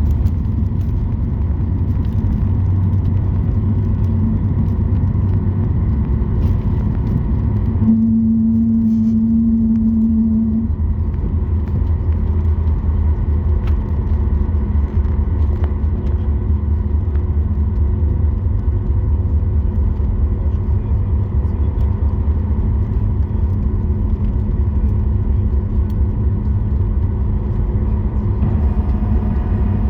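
Cabin noise aboard a Boeing 737 MAX 8 on the ground after landing: a steady low rumble from the engines and the wheels rolling. About eight seconds in, a steady hum sounds for a couple of seconds.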